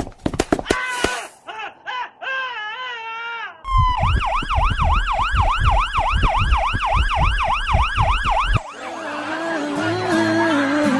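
A rapid clatter and a short burst of noise, then wobbling pitched sound-effect tones, then a yelp-style siren wailing quickly up and down, about three sweeps a second, over a regular low thumping beat for about five seconds. Music with held notes takes over near the end.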